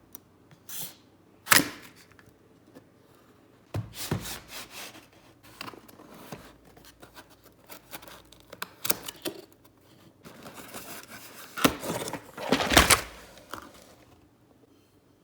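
Handling a Zet Blade Pro keyboard and its packaging: irregular clicks, knocks and rustling in scattered clusters, loudest about a second and a half in and again near the end.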